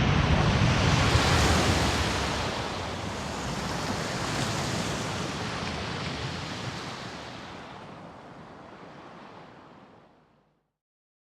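Dramatic TV sound effect: a loud rushing noise with a deep low end, slowly dying away over about ten seconds until it stops.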